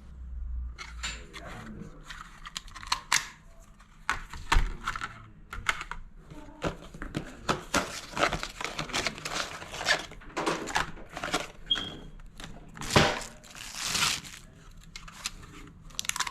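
Hands working on mains smoke alarm parts: irregular crinkling and rustling with small clicks and taps, including a louder rustle near the end.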